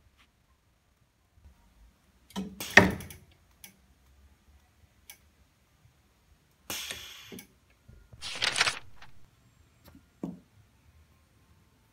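Working sounds of a jewelry wax injector with a rubber mold clamped against its nozzle while wax is injected. A loud clatter comes a few seconds in, then two short rushing noises, and a single short knock near the end as the rubber mold is handled.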